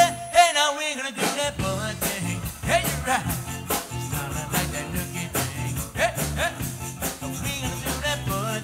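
Live band with accordion and electric guitar. After a loud hit and a short break, the full band comes back in about a second in with a steady dance beat.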